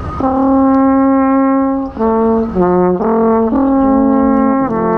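Wooden alphorn playing a slow tune of held notes. It opens with one long note of about a second and a half, then moves through several shorter notes that step down and back up.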